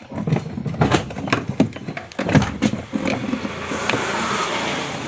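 Knocks and clatter as a washing machine's outer body is pulled open, about a dozen short knocks in the first three seconds, then a steadier rubbing noise from about three seconds in.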